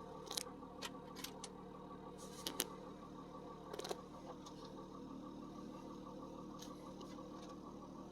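Audi A6 3.0 TDI V6 diesel engine idling steadily with a fine rapid clatter, the shaking and noise that the shop puts down to worn engine mounts. A few sharp clicks in the first four seconds.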